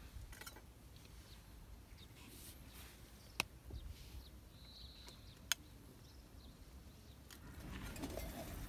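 Two sharp clinks of a metal spoon against a stainless steel bowl, about two seconds apart, as rice is scooped out of it.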